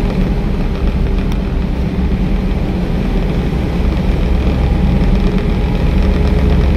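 Car engine and tyre noise heard from inside the cabin while driving at road speed: a steady drone that grows a little louder in the second half.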